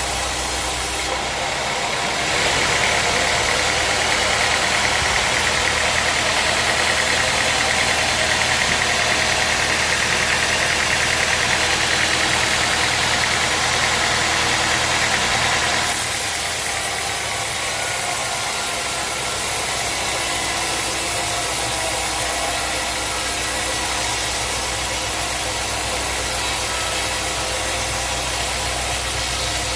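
Sawmill machinery running steadily, with a louder, harsher stretch from about two seconds in to about sixteen seconds in.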